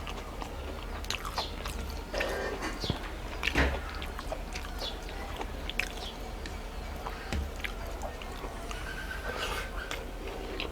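A person chewing a mouthful of rice and fish curry, with scattered short mouth clicks over a low steady hum.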